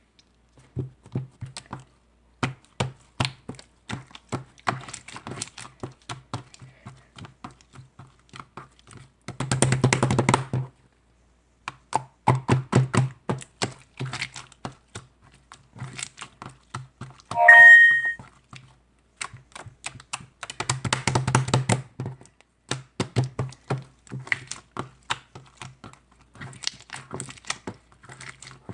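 Keyboard typing: irregular keystroke clicks, with two fast flurries of keystrokes about ten and twenty-one seconds in. A short, loud electronic tone sounds a little past the middle.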